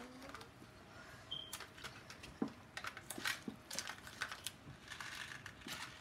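Metal spoon scooping cooked rice out of a steel pot and into a glass dish: light, irregular clicks and taps of metal against the steel pot and the glass.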